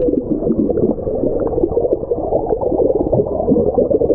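Bubbling and churning water heard underwater, from a swimmer kicking past in a pool. It is muffled and dull, a dense crackle of bubbles with no high sounds.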